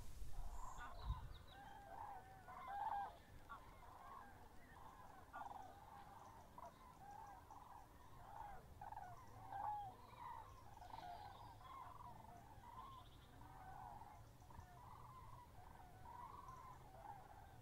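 Faint calls of a flock of waterfowl: many short honking calls, overlapping and going on throughout, the loudest ones about 3 and 10 seconds in.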